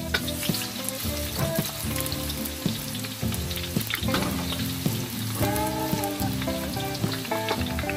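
Shredded tuna with spices frying and sizzling in a pan, stirred with a spatula that clicks and scrapes against the pan now and then. Background music plays underneath.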